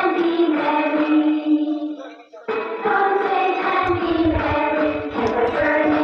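A group of voices singing a slow song together in long held notes, breaking off briefly about two seconds in. Low thuds join from about four seconds in.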